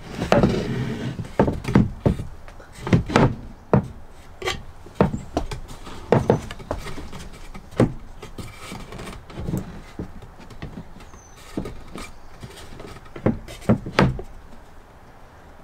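Plywood divider panels being test-fitted and shifted on a wooden overhead-cabinet frame: irregular wooden knocks and clunks with some scraping, the loudest knocks a second or two apart.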